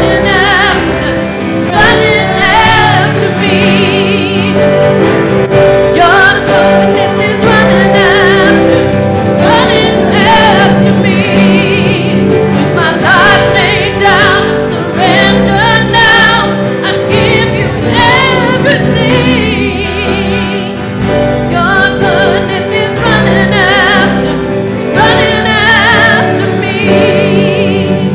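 Live worship music: singers with vibrato over a steady band accompaniment, in a contemporary gospel style.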